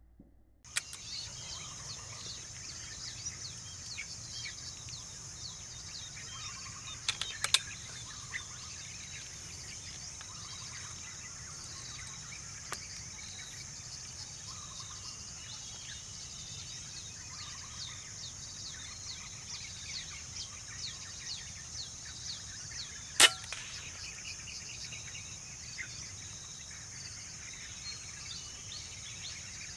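Insects shrill steadily and high-pitched throughout, with a few faint clicks. One sharp crack about 23 seconds in is a single shot from a Dhemit PCP air rifle.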